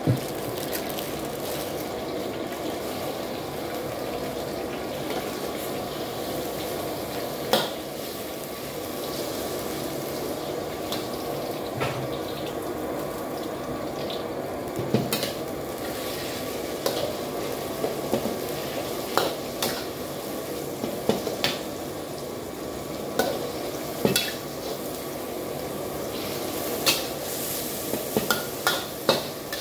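Pieces of pork frying in a steel wok with a steady sizzle. A metal ladle now and then knocks and scrapes against the wok, and the strokes come faster near the end as the meat is stirred.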